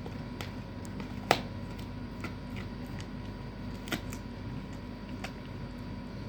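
Doberman gnawing a cow bone: scattered sharp cracks and clicks of teeth on bone, the loudest just over a second in and another near four seconds, over a steady low hum.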